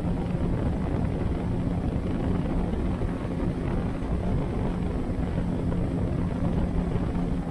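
A motor running at a steady speed, with a constant low hum under a dense low rumble.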